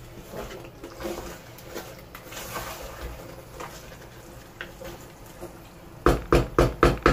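A spatula stirring a thick tomato-and-pepper stew base as it fries dry in a pot, a soft wet squelching and sizzle. About six seconds in come several sharp knocks as the spatula is tapped against the pot.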